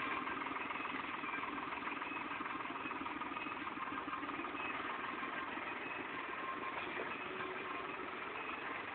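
Diesel engine of a New Holland TD65 tractor running steadily as the tractor pulls a rear grading blade through loose soil.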